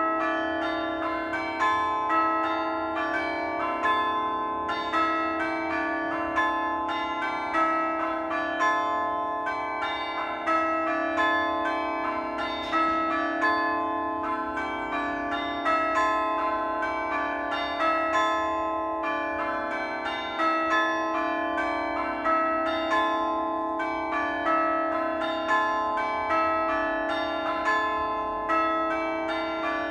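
Church bells pealing: a steady, continuous run of strikes at different pitches, one after another, each tone ringing on into the next.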